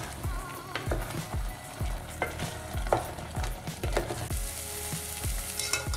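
Spatula stirring and scraping thick curry gravy around a metal pot in repeated strokes, the gravy sizzling on the gas flame.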